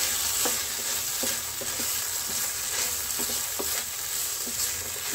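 Chicken, onion, capsicum and grated carrot sizzling in a pan over a low flame while a wooden spatula stirs them, with irregular scrapes and taps of the spatula against the pan.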